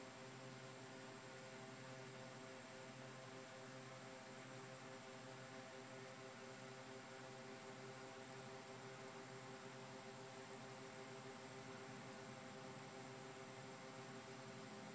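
Near silence: a faint, steady hiss and hum with a thin high tone, and no distinct sounds.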